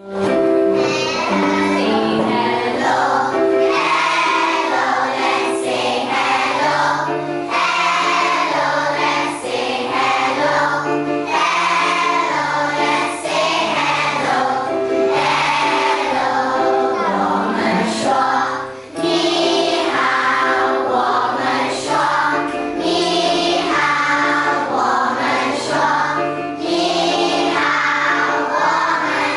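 A group of young children singing an action song together, accompanied by an electronic keyboard playing a steady, repeating bass line.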